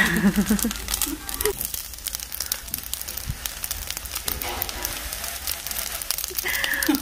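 Seaweed fried rice crackling and sizzling in a hot metal pan with a steady patter of fine pops, the rice crisping against the pan. A metal spoon scrapes in the pan near the start.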